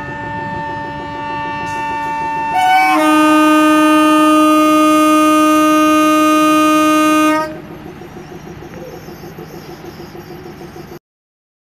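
Dubbed-in recording of a real train's horn blowing one long blast, which shifts to a louder, different chord about three seconds in and stops after about seven seconds. A quieter rumble of the train running, pulsing about four times a second, follows and cuts off abruptly.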